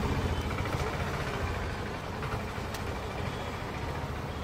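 Steady low engine rumble of street traffic, with a faint click about two and a half seconds in.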